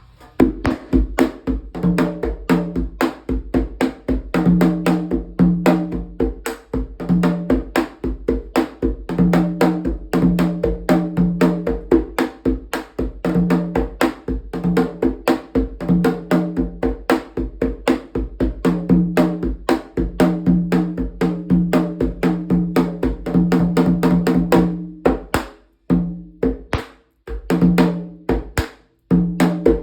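A rum atabaque, the tall goat-skin hand drum, tuned slightly down for candomblé Ketu and played in a fast, dense rhythm with wooden aguidavi sticks. Sharp stick strokes run throughout, with a deep drum tone sounding on some strokes, and the playing breaks off briefly twice near the end.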